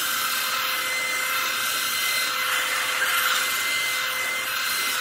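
Handheld hair dryer running steadily at close range, a rush of air with a steady high motor whine, drying hair gel on a stocking cap until it is tacky.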